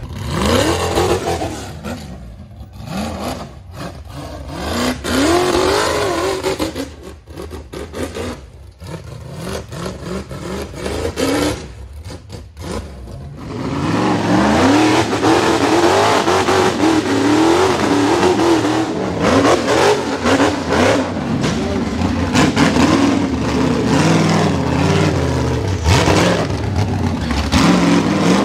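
Rock bouncer's engine revving hard in repeated rising and falling bursts as the buggy climbs over rocks. It is patchy at first and becomes louder and continuous about halfway through.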